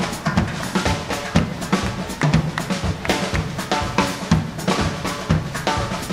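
Live Latin dance band playing a conga tune, with a strong, steady drum beat under the melody instruments.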